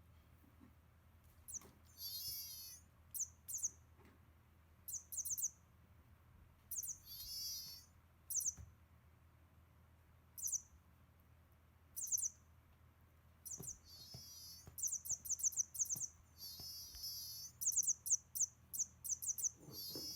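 Battery-powered toy mouse giving short, very high electronic squeaks, set off by vibration as the cats bat it about. The squeaks come in scattered clusters and run into quick strings of chirps in the last few seconds, with a few faint knocks of the toy.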